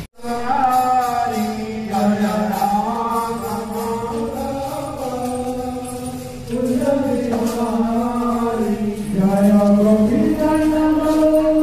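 Devotional chanting: a voice sings long held notes that step up and down in pitch, after a brief dropout at the very start.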